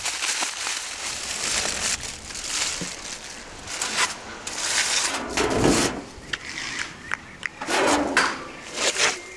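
Aluminium foil crinkling as it is wrapped around fish, followed by clinks and scrapes of a metal rack being lowered into a clay tandoor and the tandoor's lid being moved over the opening. The sound is a string of short crackles and knocks with a couple of longer scrapes.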